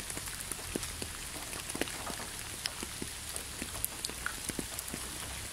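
Steady light rain: an even hiss with many individual drops ticking at irregular moments.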